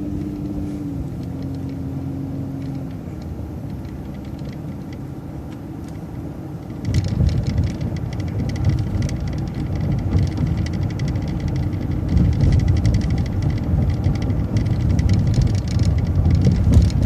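Transit bus running on the road, heard from inside: a steady low engine and drivetrain hum that turns louder and rougher about seven seconds in.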